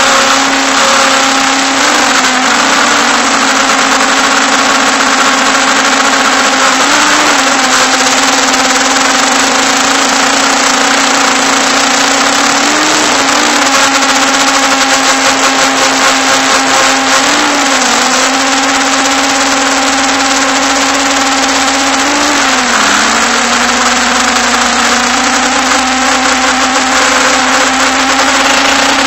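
MJX Bugs 5W quadcopter's brushless motors and propellers whining steadily in flight over a rushing noise of prop wash, heard close up from a camera mounted on the drone. The pitch dips briefly about five times as the throttle changes.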